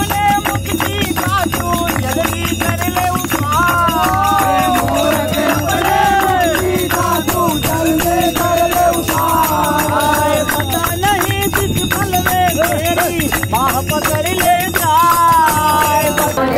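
Men singing a Hindu devotional song (bhajan) together, accompanied by a dholak hand drum, small hand cymbals (manjira) and hand clapping keeping a brisk, even beat.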